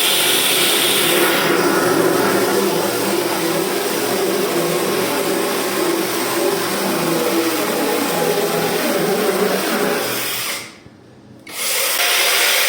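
Cordless lithium-battery chainsaw running steadily and cutting wood. It stops for about a second near the end, then starts again.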